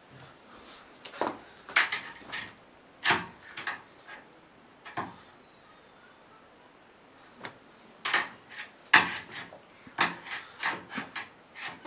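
A hand tool scraping and rubbing against a wooden door in short, irregular strokes, in two spells with a pause of a few seconds between them.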